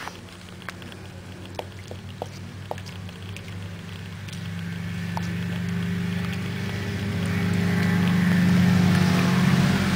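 A motor engine's low, steady hum that grows steadily louder through the second half. A few faint clicks of a puppy lapping water in the first few seconds.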